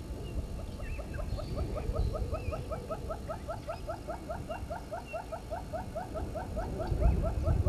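An animal calling in a rapid, even series of short rising notes, about five a second, that starts about a second in and runs on until near the end.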